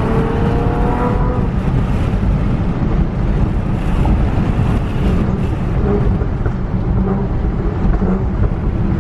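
Honda Accord engine and exhaust while driving, the engine note rising for the first second or so, then largely buried under heavy wind and road rumble. The car runs a pops-and-burbles exhaust tune, and some popping is heard through the wind.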